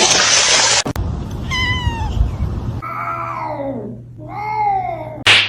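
Domestic cat meowing three times, each call bending up and down in pitch, after a short loud burst of noise at the start. A brief sharp noise near the end.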